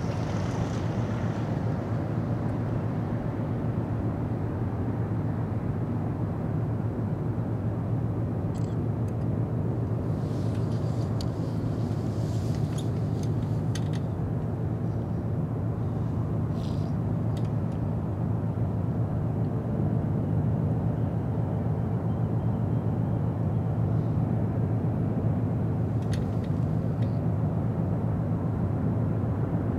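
Ro-ro cargo ship's engines giving a steady low drone as the ship passes close by, growing a little louder about two-thirds of the way through, with a few faint light ticks over it.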